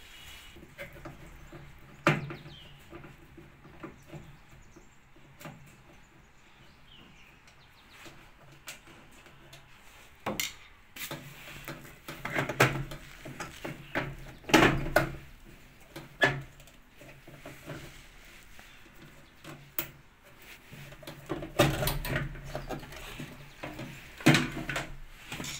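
Scattered clicks, taps and knocks of tools and parts being handled as a washing machine is taken apart, with quieter stretches between them; the densest run of knocks comes about halfway through.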